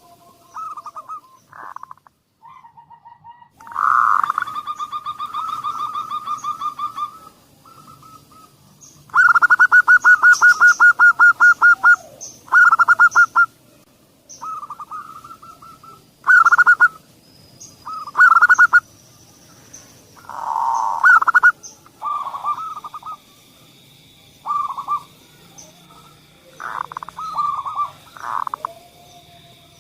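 Zebra doves (perkutut) cooing in quick, pulsed, staccato phrases. Two long rapid trills come early, then shorter cooing phrases follow every second or two: lure calls meant to set other perkutut singing.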